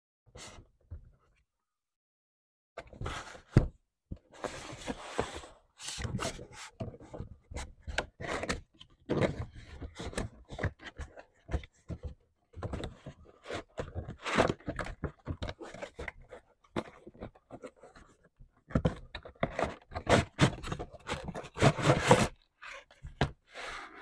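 Cardboard toy box being handled and opened: irregular scraping, rustling and knocking of the cardboard, with a few short pauses, starting a few seconds in.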